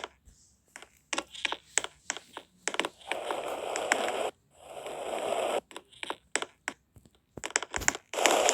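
Irregular clicks and crackles, with three stretches of rustling, scraping noise, the third starting near the end.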